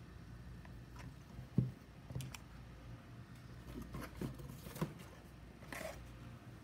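Soft knocks and clicks of packaged food being handled, as plastic soup cups are set down on a cloth-covered table, with a short rustle near the end. The loudest knock comes about one and a half seconds in.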